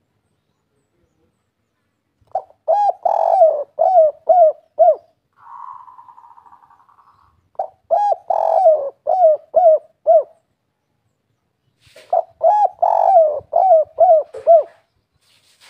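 Spotted dove (derkuku) cooing in three phrases of repeated low coos, each phrase lasting about two and a half seconds, in the 'kuk 3' song type prized by dove keepers. A softer trembling note sounds between the first two phrases.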